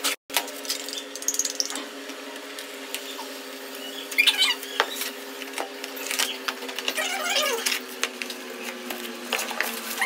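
A cardboard parcel being opened by hand: knocks and scrapes of the box, and packing tape pulled off with squeaky rips about four and seven seconds in. Near the end, bubble wrap rustles. A steady low hum runs underneath.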